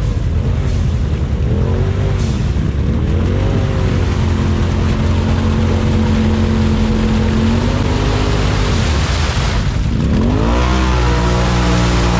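Side-by-side UTV engine revving hard while churning through a deep mud hole: several quick rev-ups and drops, a few seconds held at steady revs, then a dip and a climb to higher revs about ten seconds in as the tires spin and sling mud.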